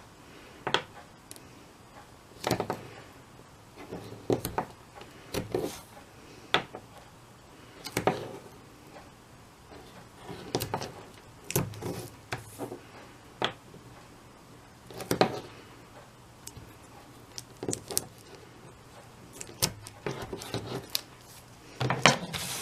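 Paper and clear plastic sheet handled while double-sided tape is applied: scattered rustles, crinkles and light taps, irregular, about one or two a second.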